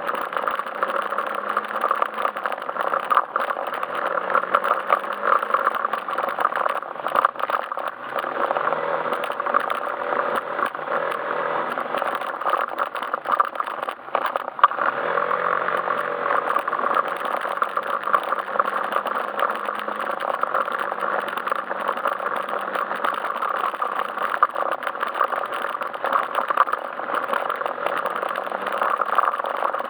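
Yamaha Majesty S scooter's single-cylinder four-stroke engine running as it is ridden, with frequent rattling clicks. The engine note drops briefly about halfway through, then picks up again.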